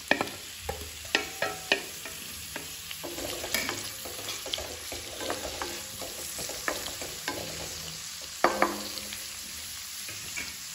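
Sliced onions sizzling in hot oil in a kadai, with a spatula stirring them and knocking against the pan: several sharp knocks in the first two seconds, scattered ones after, and a louder knock about eight and a half seconds in.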